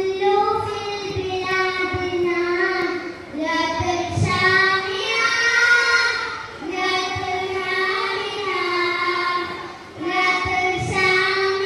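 A child singing a melody, with long held, gently wavering notes and short breaths between phrases. Faint low thumps sound under the voice now and then.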